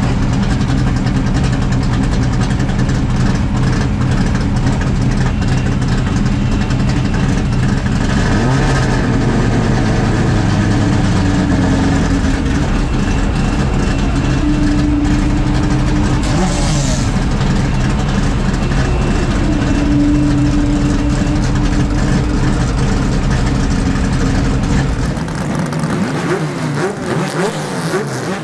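Four-litre six-cylinder engine of a TC Bonaerense Clase A race car running steadily at low revs, heard from inside the cockpit. Near the end the sound changes to race engines heard from outside, with short revs rising and falling.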